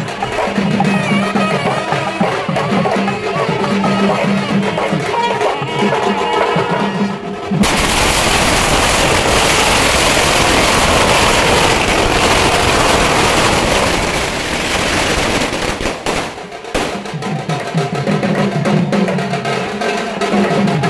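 Procession music of drums and a wavering wind melody, which gives way abruptly about seven seconds in to a long string of firecrackers going off as one dense, loud crackle for about nine seconds; then the drumming and melody return.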